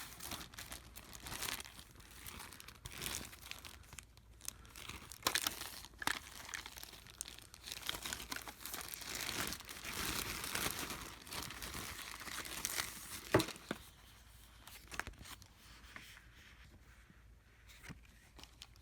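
Adhesive stickers being peeled off inside a MacBook Pro: irregular tearing and crinkling, with a sharp click about thirteen seconds in, growing quieter over the last few seconds.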